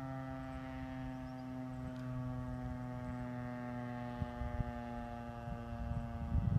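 Federal Signal STH-10A fire siren sounding its daily 6 PM time signal: a steady, distant wail with a rich stack of tones, sinking slowly in pitch. Low rumbling noise picks up near the end.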